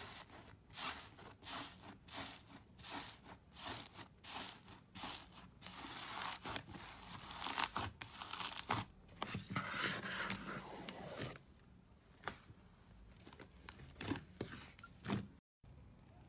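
Slime being worked by hand, making crackling, crinkly squelches. There are about ten strokes in steady rhythm at first, then a denser stretch of crackling, then a few scattered clicks and pops.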